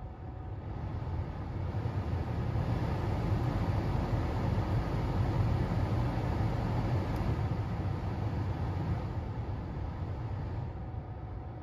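Heater blower fan of a fourth-generation Honda CR-V, newly replaced, blowing air into the cabin. The rush of air builds up over the first few seconds as the fan speeds up and eases back down near the end.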